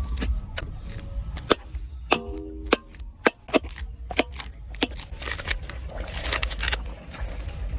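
Knife chopping on a cutting board: a run of irregular sharp knocks, with a hissy stretch in the last third.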